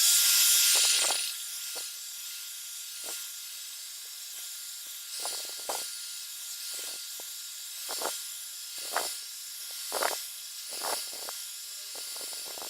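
Hair dryer blowing on a phone to heat and soften its screen adhesive: a steady airy hiss with a faint whine that switches on suddenly, is loudest for the first second, then runs evenly and cuts off at the end. A few soft taps are heard over it.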